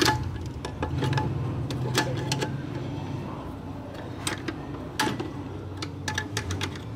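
Irregular metallic clicks and scrapes of a screwdriver and spanner working a rusted nut and bolt on a car's CNG kit mounting, over a low steady hum. The rust makes the bolt stiff to turn.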